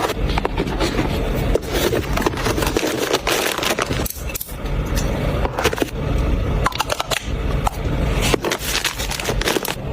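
Scraping, rubbing and crackling of phone packaging being handled, with many small clicks and taps throughout.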